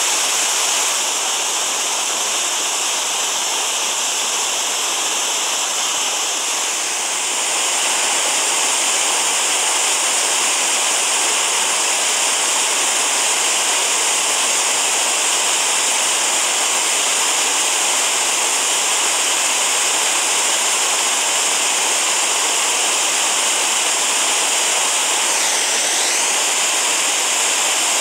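Mountain creek rushing and cascading over granite boulders in a steady, loud whitewater roar.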